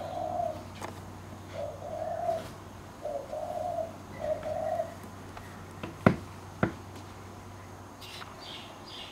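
A dove cooing: four low, even coos about a second apart, followed a little later by two sharp clicks.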